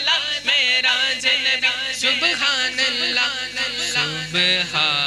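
Male voices chanting a vocal interlude of an Urdu naat, short wavering sung phrases one after another. A low steady hum joins them about four seconds in.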